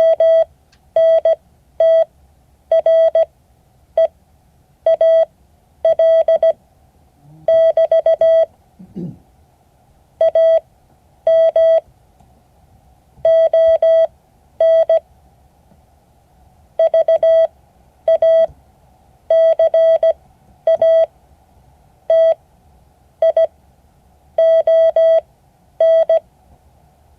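Morse code: a single steady beep tone keyed on and off in short and long marks, grouped into letters and words with pauses between them. It spells out a reply for the class to copy.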